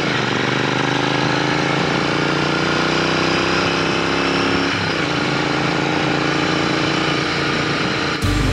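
Royal Enfield Interceptor 650 motorcycle's 648 cc parallel-twin engine running under way. Its note drops sharply twice, just after the start and again about five seconds in, as at gear changes.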